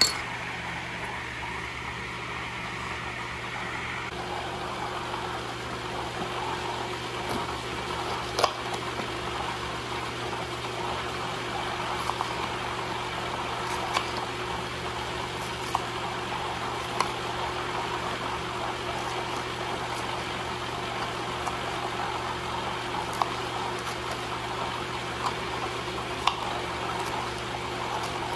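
Food processor motor running steadily, blending a thick cashew salsa. Over it come a dozen or so irregular sharp taps of a chef's knife striking a bamboo cutting board as celery and bell pepper are cut into sticks.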